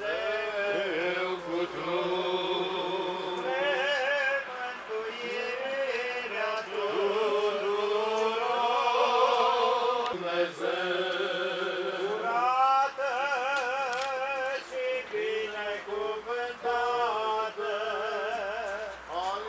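Romanian Orthodox funeral chant sung by male voices: a slow melody of long, wavering held notes with short breaks between phrases.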